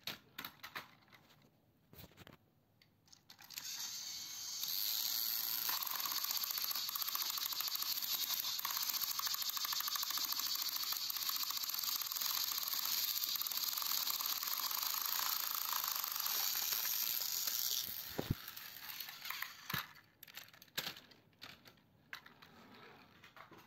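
Battery-powered Plarail toy train's electric motor and gearbox whirring steadily for about fourteen seconds, starting about four seconds in and cutting off sharply after eighteen seconds. Scattered light clicks and rustles of handling come before and after.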